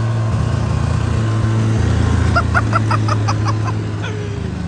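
Ski-Doo snowmobile engine running steadily under throttle as the sled pulls away, easing off near the end.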